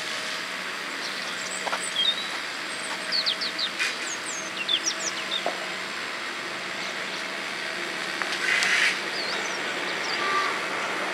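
Small birds chirping repeatedly in short, high calls over a steady background hum. Near the end a heritage London Underground 1938 Stock tube train comes into earshot.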